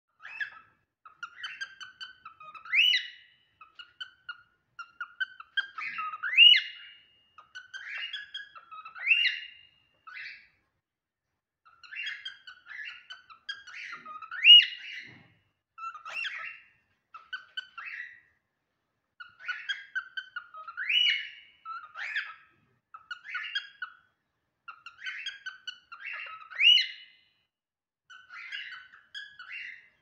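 Cockatiel whistling and chirping: runs of short chirps, each phrase capped by a loud rising whistle, repeating every few seconds.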